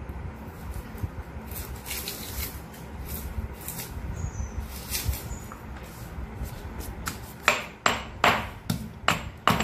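Light clicks as garlic cloves and ginger pieces drop into a black stone mortar. Then, about seven and a half seconds in, a stone pestle begins pounding them for ginger-garlic paste, with sharp strikes about two a second.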